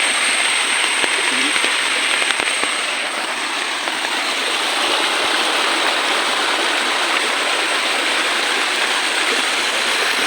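Small mountain stream rushing steadily over rocks.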